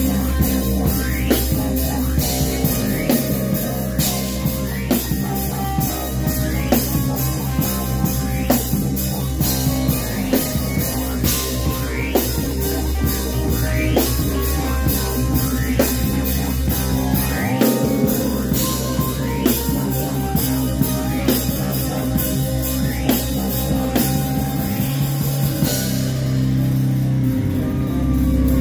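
Live rock band playing: drum kit keeping a steady beat with cymbal hits, over electric guitar and bass guitar. Near the end the cymbals drop out, leaving a held low bass.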